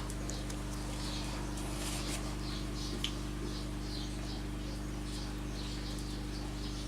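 A small animal's short high chirps, about two to three a second, over a steady low electrical hum.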